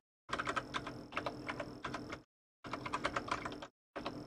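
Typing on a computer keyboard: quick runs of keystrokes broken by short silent pauses, as a terminal command is keyed in.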